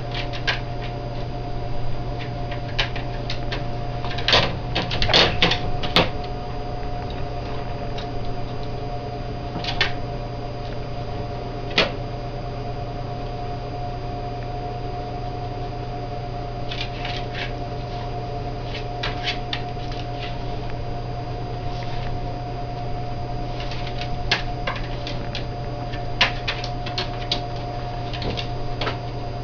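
A steady hum with scattered light clicks and knocks, some coming in quick clusters of several taps.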